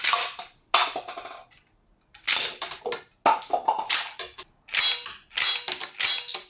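Toy Glock-style blowback pistol with automatic shell ejection being fired about seven times at irregular spacing. Each shot is a sharp plastic clack as the slide cycles, with a short rattle after it.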